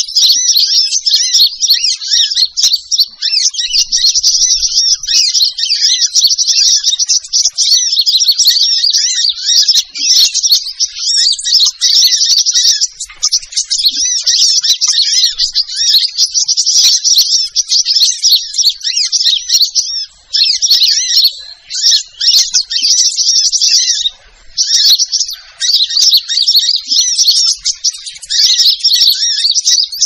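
Sunbird (burung matari) song played as a bird-lure recording: a dense, fast stream of high twittering chirps, dropping out briefly about twenty and twenty-four seconds in.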